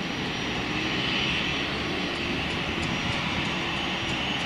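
Airbus A320-214 airliner on final approach with its landing gear down, its two CFM56-5B turbofan engines running at approach power: a steady rushing jet noise with a faint thin high tone, swelling slightly about a second in.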